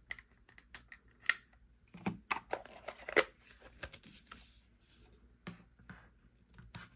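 Plastic clicks and taps of a handheld mini vacuum being put back together by hand, its dust cup, filter and crevice nozzle fitted back on; the vacuum is not running. A few sharp snaps stand out, the loudest a little after two and three seconds in.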